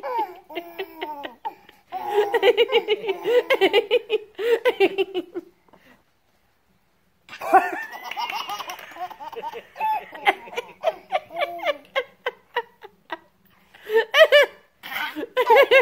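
A toddler laughing hard in repeated bursts of quick belly laughs and giggles, with a pause of about a second and a half partway through.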